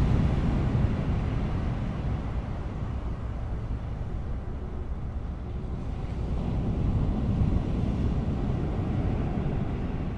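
Steady low rumble of wind buffeting the microphone, mixed with small waves breaking on a sandy beach, swelling and easing slowly.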